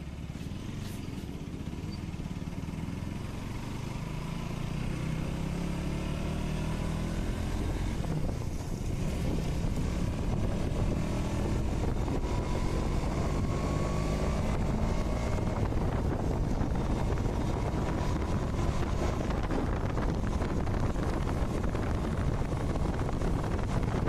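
KTM Duke 200 BS6's single-cylinder engine accelerating from low speed through the gears, rising in pitch several times between upshifts and growing louder as the bike picks up speed.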